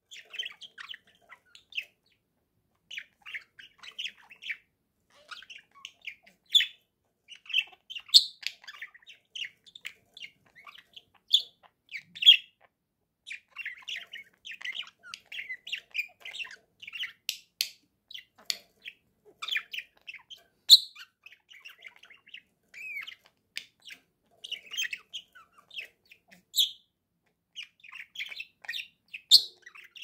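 Pet budgerigars chattering: a continuous stream of short chirps and warbles, with sharper, louder squawks every few seconds.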